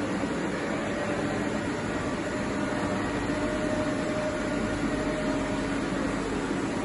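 TOS WHN 13 CNC table-type boring machine running as its rotary table turns: a steady mechanical hum with a faint drive whine whose pitch drifts and drops near the end.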